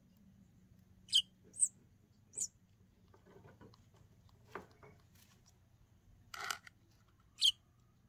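Fledgling songbird giving short, high begging peeps while it is hand-fed: three in the first couple of seconds and one more near the end, with a brief scratchier sound shortly before the last one.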